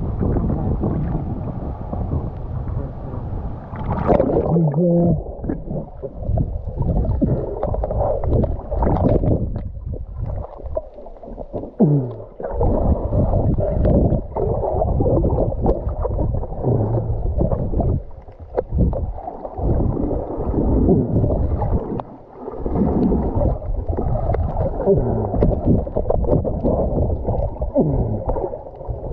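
Muffled underwater rumble of water churning and sloshing against an action camera, heard from below the surface, with now and then a short gurgle that slides in pitch.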